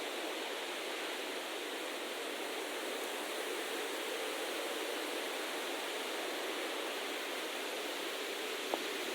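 Steady rushing noise of outdoor ambience, even throughout, with a single small tick just before the end.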